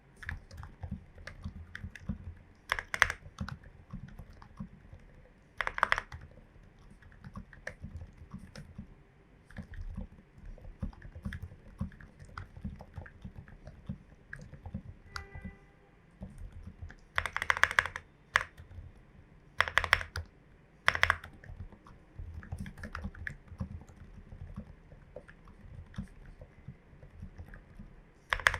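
Steady typing on a Glorious GMMK Pro mechanical keyboard with lubed, filmed switches and MT3 keycaps. Keystrokes come as a run of muffled low thuds, broken by about eight louder, sharper clacks.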